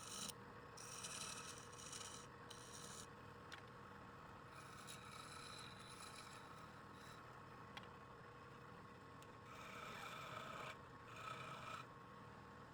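Faint scraping against wood on a wood lathe, in several separate strokes of half a second to a second and a half each, over a steady faint hum.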